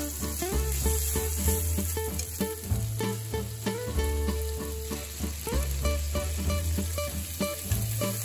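Sliced sausage and bacon sizzling in a nonstick frying pan while being stirred with wooden chopsticks, a steady hiss of frying. Background music with a repeating bass line plays throughout.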